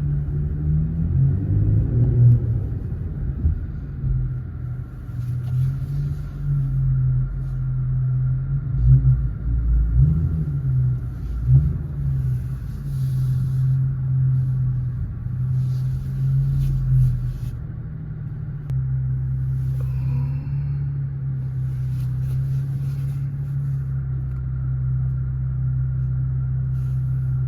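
Car engine and road rumble heard from a moving car, low-pitched and rising and falling, then settling into a steady drone about two-thirds of the way in.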